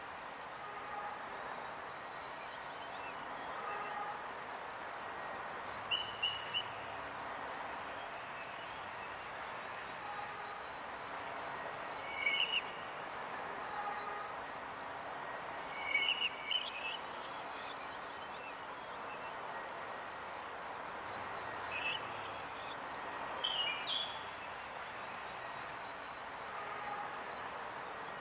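A steady high, fast-pulsing trill like a cricket chorus, with short higher chirps every two to four seconds.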